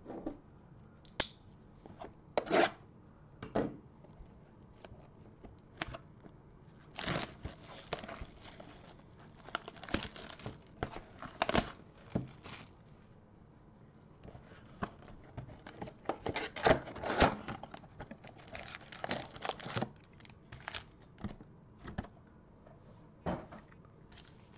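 A 2021 Panini Prestige football trading card Mega Box being torn open by hand and its foil packs pulled out. Irregular tearing and crinkling of wrapper and cardboard, coming in spells with short pauses between.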